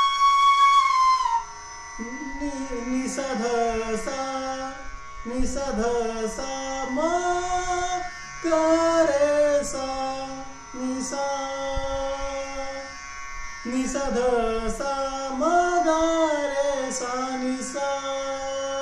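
Bamboo bansuri flute holding a high note that ends about a second and a half in. Then a man's voice sings the melodic line note by note, with glides between the notes and short hissy consonants.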